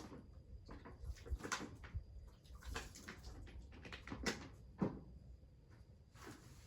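A few scattered light clicks and knocks at irregular intervals over a low background, the sharpest at the very start and about five seconds in.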